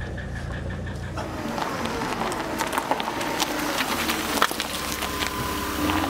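Mercedes-Benz OM617 five-cylinder diesel running with a regular tick for about the first second, the knock that the owner could not trace to a single injector. Then a busier, louder sound with sharp clicks and sliding tones takes over.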